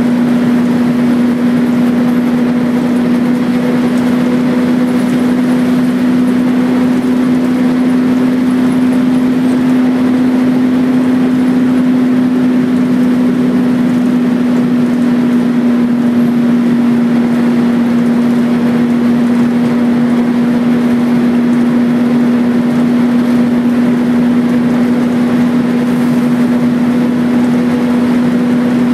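Volvo B10BLE bus's rear-mounted six-cylinder diesel engine, heard from inside the cabin. It runs loudly and steadily, a strong even drone that holds the same pitch throughout.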